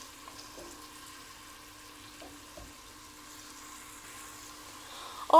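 Chopped onion and garlic frying gently in oil in a pot, a faint steady sizzle with no stirring, as the onion cooks to translucent. A low steady hum sits under it.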